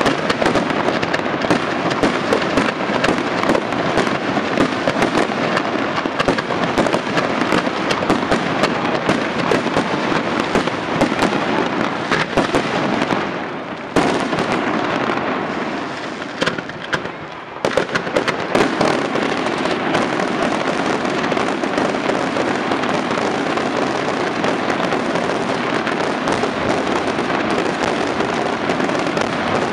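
Daytime fireworks barrage: a dense, continuous run of bangs and crackling from shells and firecrackers bursting in quick succession. It thins out for a few seconds about halfway through, with one sharp crack, then picks up again.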